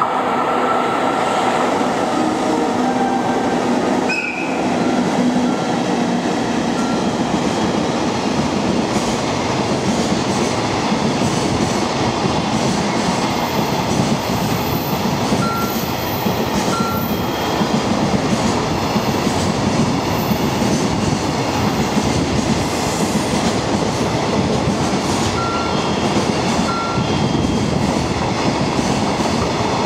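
JNR Class EF64-1000 electric locomotive passing at the head of a container freight train, then a long string of container wagons rolling steadily by with wheels running on the rails. A few steady tones are heard in the first seconds as the locomotive goes past, and there are brief high wheel squeaks now and then.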